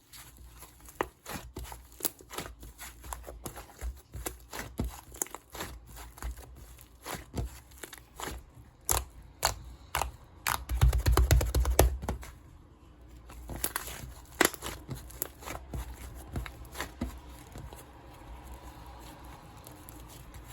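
Clay slime being handled: a string of irregular crackling clicks, packed densest with low thumps about halfway through.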